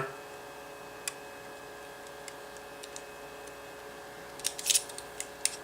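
Small metallic clicks from a stainless SOG Power Assist S66 multi-tool as its fold-out tools are handled: one click about a second in, a few faint ticks, then a quick run of clicks near the end. A faint steady hum sits underneath.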